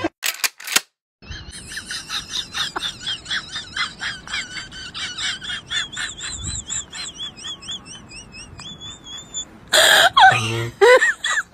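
A sleepy fluffy white puppy mouthing a plush toy, with rhythmic high, wavering squeaks about four times a second that slowly grow fainter. A short loud burst of sound comes near the end.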